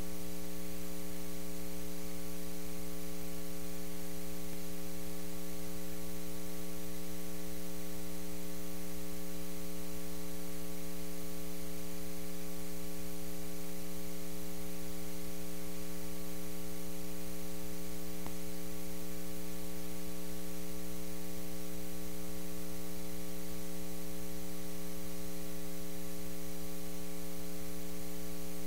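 Steady electrical mains hum with a buzzy edge and a little hiss, unchanging throughout.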